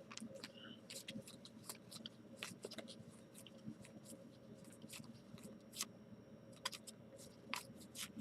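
Trading cards being handled and flipped through, making a faint, irregular string of crisp clicks and ticks.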